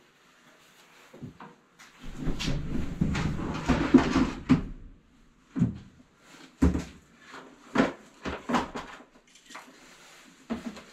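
Stored belongings being rummaged through and handled: a few seconds of rustling and scraping, then several separate knocks and bumps as things are moved and set down.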